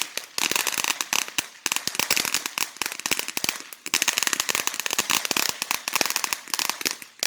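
Consumer firework going off with a dense, rapid crackling of many small pops, with a few brief gaps, stopping suddenly near the end.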